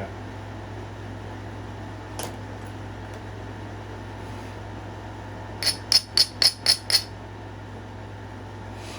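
Steady low room hum. About two seconds in comes one faint tick; past the middle comes a quick run of six sharp clicks, about five a second.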